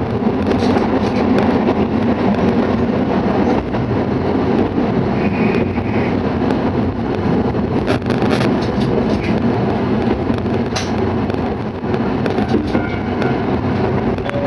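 Shimabara Railway diesel railcar running along the line, heard from inside the car: steady engine and wheel noise with scattered clicks over the rail joints. Brief faint high-pitched tones come twice, about five seconds in and near the end.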